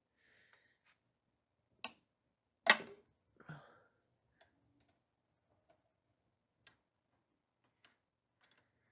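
Wrench on a motorcycle brake bleeder bolt: a light click, then one sharp metallic crack about three seconds in as the bolt breaks loose, followed by a short rattle and faint scattered ticks.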